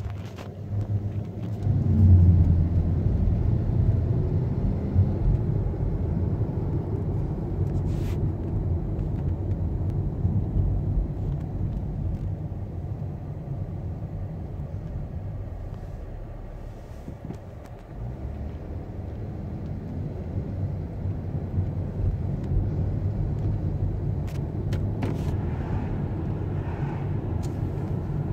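Car interior noise while driving: a steady low rumble of engine and tyres on the road, easing off a little past halfway and building again.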